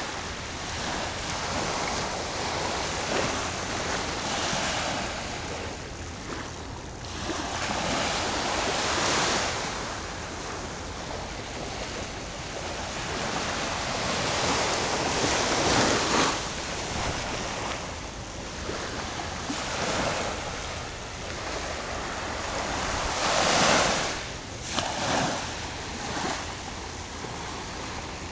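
Small ocean waves breaking and washing up onto a sandy beach: a steady surf hiss that swells and ebbs every several seconds, loudest about three-quarters of the way through.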